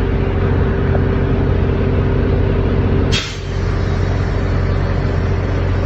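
Diesel semi-truck engine idling steadily, and about three seconds in a sudden short blast of air from the air dryer's purge valve as the truck's air tanks reach full pressure. Purging this often is, by the driver's account, the sign of a governor that is not working or a massive air leak, which keeps the air compressor running constantly.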